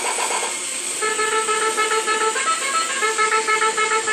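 Battery-operated toy helicopter's electronic sound chip beeping: a fast warbling effect that gives way about half a second in to a simple tune of short electronic notes.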